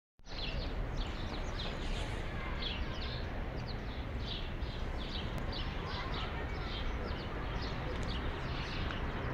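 Small birds chirping in a quick, steady series of short high chirps, about three a second, over a steady background hiss and rumble.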